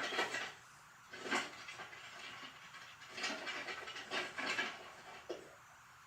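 Cartoon sound effects played backwards: about half a dozen short, rushing hiss-like bursts of noise, the loudest right at the start and about a second and a half in.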